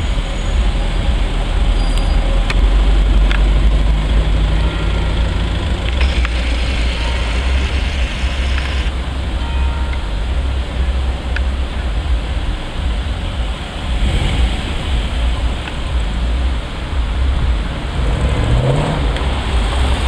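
Jaguar XKR's supercharged V8 running at low speed with a steady low exhaust rumble, and a brief rev rising in pitch near the end.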